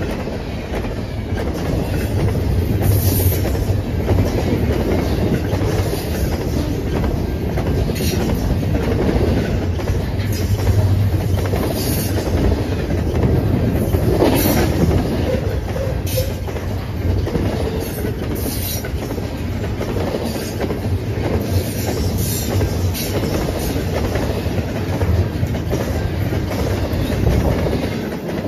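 Double-stack intermodal well cars rolling past at speed: a steady heavy rumble with the clickety-clack of wheels over the rails. Brief high-pitched wheel squeals come every second or two, the strongest about halfway through.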